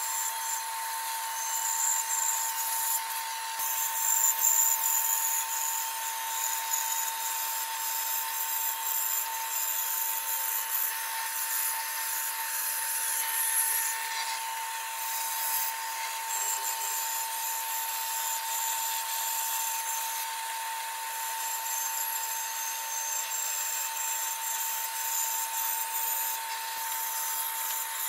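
A handheld power tool working wood, running steadily with a constant motor tone under a scratchy, abrasive noise.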